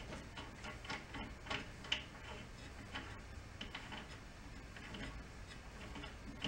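Faint, irregular clicks and light taps of a hand tool and small metal parts being handled at the top of an old outboard motor.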